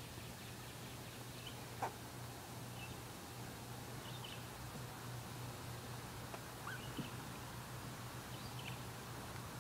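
Quiet outdoor background with a steady low hum, a few faint high chirps scattered through it, and two soft clicks, about two seconds in and about seven seconds in.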